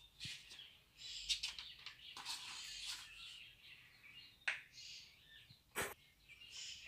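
Faint bird chirps, with light handling noise and two sharp clicks in the second half.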